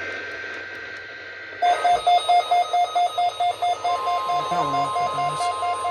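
Weather radio alarm beeping in a rapid pulsing tone, about five beeps a second, starting about one and a half seconds in. About four seconds in, the steady weather-radio warning alarm tone joins it, as in the weekly test of the alarm.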